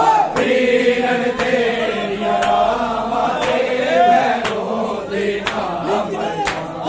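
Men's voices chanting a noha lament together, with chest-beating matam: open hands striking bare chests in unison about once a second, keeping the beat.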